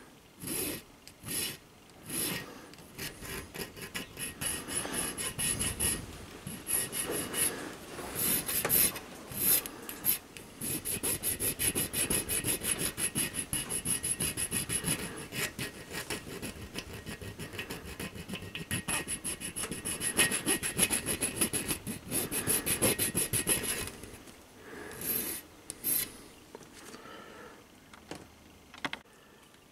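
Fine needle file rasping on a small brass slip-eccentric cam clamped in a bench vice, in quick short strokes, cleaning up the edges of a hacksawn opening. The strokes are sparse at first, come fast and steady through the middle, and stop a few seconds before the end.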